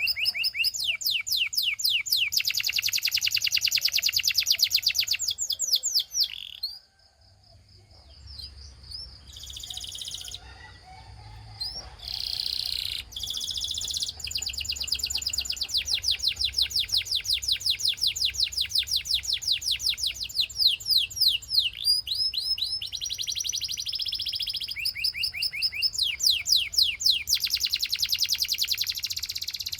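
Belgian canary singing: long rolls of rapid, evenly repeated high trill notes, broken by a short near-quiet pause about seven seconds in and a few brief held whistled notes before the fast trills resume.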